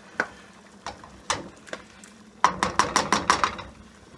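Black spoon stirring thick tomato sauce in a nonstick pan, knocking against the pan now and then, with a quick run of about eight knocks about two and a half seconds in.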